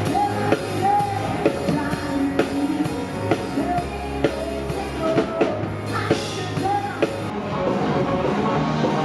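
Live rock band music: a singer holding notes over a drum kit keeping a steady beat.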